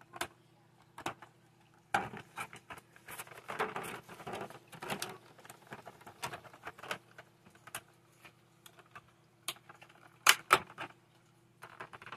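Clear plastic packaging of an action figure being handled and pulled at: crinkling and sharp clicks, with a denser run of crackling about two to five seconds in and two loud clicks just after ten seconds.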